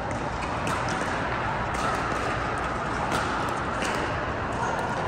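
Steady background hum of a large indoor pickleball hall, with a few faint, sharp knocks of plastic pickleballs against paddles and the court.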